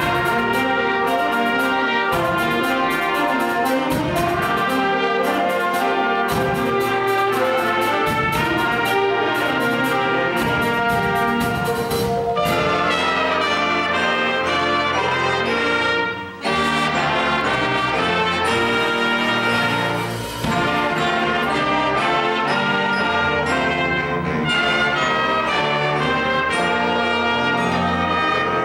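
High school stage band playing live, the trumpets, trombones and saxophones sounding together with frequent sharp hits. The band drops out for a moment about sixteen seconds in, and more briefly about twenty seconds in.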